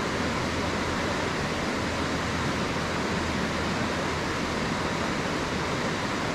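Steady rushing of flowing river water: an even noise with no distinct events.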